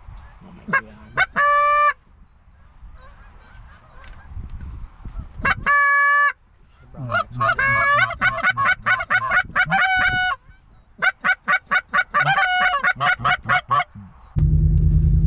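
Canada geese honking: two long, level honks, then fast runs of short honks and clucks. Near the end a vehicle's steady low rumble comes in.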